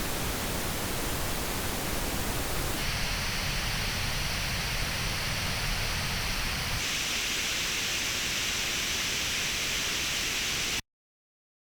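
Pink noise test signal reproduced by headphones and captured by an artificial-ear simulator, a steady hiss. Its tone colour shifts abruptly twice, about three seconds in and about seven seconds in, then it cuts off sharply shortly before the end.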